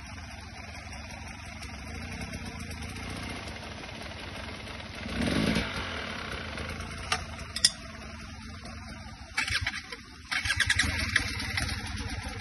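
Enduro dirt bike engines running at low revs on a steep, slow descent, swelling briefly about five seconds in. Two sharp knocks come around seven seconds in, and near the end the nearest bike's engine picks up in short, rapid bursts.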